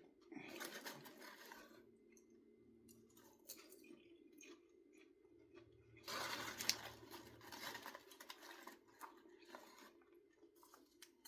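Faint crunching and chewing of popcorn, with scattered small crunches and two longer crunchy stretches, one just after the start and one about six seconds in, over a low steady hum.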